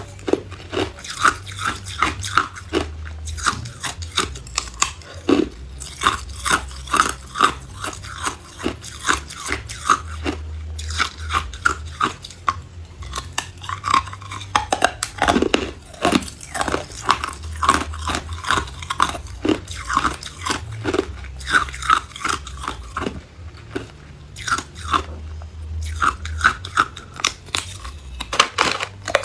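Hard ice cubes being bitten and chewed: rapid sharp cracking crunches, several a second, close to the microphone.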